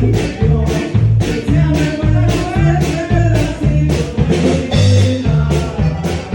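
Norteño band music: sustained melody lines over a steady bass beat, about two bass notes a second.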